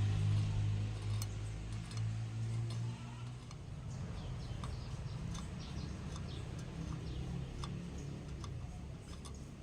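A steady low hum, stronger for the first three seconds and fainter after, with scattered light ticks and clicks.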